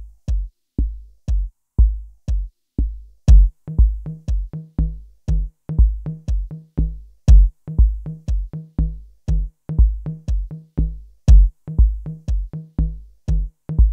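Electronic background music: a steady drum-machine beat with heavy kick drum, joined by a bass line about three seconds in.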